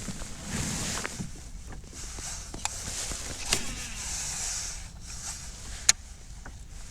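Fishing reel being cranked while a bass is fought from a kayak: a steady whirring hiss broken by a few sharp clicks, the loudest about six seconds in.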